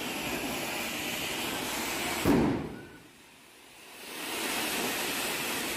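A row of ground fountain fireworks spraying sparks with a steady rushing hiss. About two seconds in there is a sharp loud thump. The hiss then falls away to a low level for about a second before swelling back, and a second thump comes at the very end.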